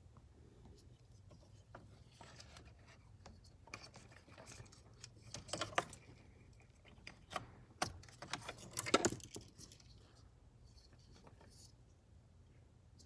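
Small plastic clicks, scrapes and rustling of hands working wiring connectors and harness under a car's steering column, busiest in two stretches in the middle.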